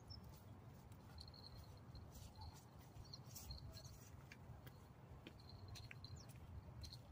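Near silence: faint open-air ambience with a low rumble and a few faint high chirps, typical of distant small birds.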